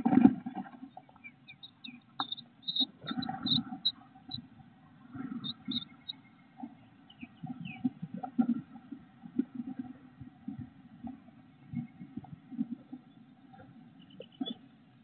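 Bluebird nestlings begging with short, high peeps, most of them in the first half, while the adult feeds them. Under the peeps are irregular low scuffles and thumps of birds moving in the wooden nest box, with a sharp knock at the very start.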